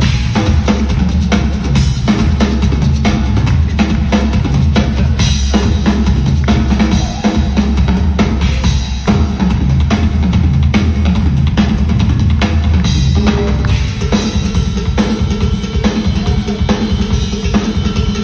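Live rock drum kit solo through a concert sound system: fast, dense strokes on the bass drum, snare, toms and cymbals. The heavy low bass-drum sound thins out about fourteen seconds in.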